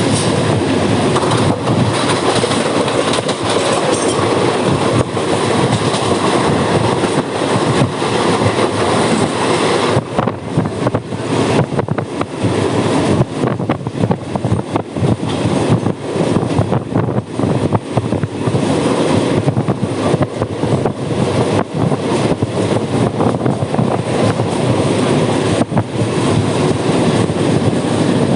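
Mumbai suburban local train running on the tracks: a loud, continuous rumble of wheels and carriages that turns choppy and uneven about ten seconds in.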